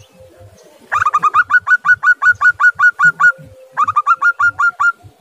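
Zebra dove (perkutut) singing: two runs of rapid, staccato cooing notes, about six or seven a second. The first run lasts about two seconds, and a shorter one follows after a brief pause.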